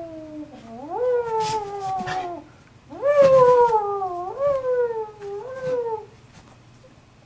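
A pet animal's drawn-out yowling calls in two runs, each made of several sharp rises in pitch that slide slowly back down. There is a short break about two and a half seconds in, and the calls stop about six seconds in.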